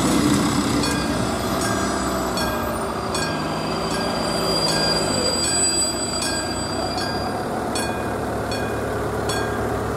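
Classic level-crossing warning bell ringing in even strokes about twice a second, while a diesel railcar train rumbles over the crossing and its noise eases off as it moves away in the first couple of seconds.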